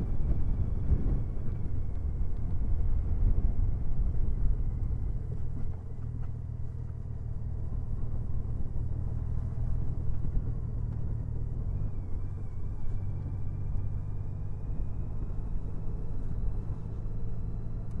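2014 Honda Valkyrie's flat-six engine running steadily as the motorcycle cruises at moderate speed, with a low hum and a faint high whine above it. The engine note drops off about six seconds in, then picks up, and shifts in pitch again about twelve seconds in.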